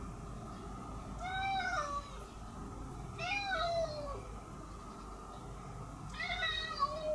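A cat meowing three times, each meow about a second long and dropping in pitch at its end.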